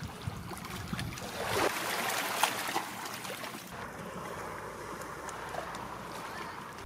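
Shallow sea water lapping and sloshing against shoreline rocks, with small splashes and clicks. It is loudest from about a second and a half to three seconds in, then settles into a softer, even wash.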